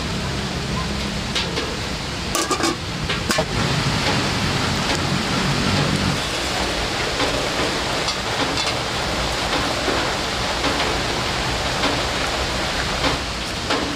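Steady hiss of rain. A low hum runs under it and stops about six seconds in, and a few sharp clicks come around three seconds in.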